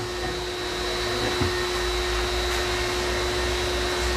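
A small electric motor running steadily with a whirring hum, its low rumble growing a little heavier about a second and a half in.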